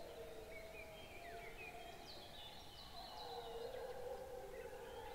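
A chorus of several wolves howling together: long, overlapping howls held and slowly bending in pitch, with short, higher calls above them.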